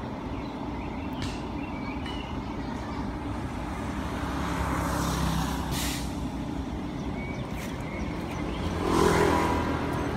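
Hyundai coach's diesel engine idling steadily, with a hiss of air about six seconds in. About nine seconds in, a louder sound swells and fades, the loudest moment.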